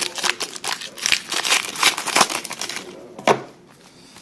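Plastic card-pack wrappers crinkling and rustling in the hands as a box of trading-card packs is opened, with one sharp snap about three seconds in.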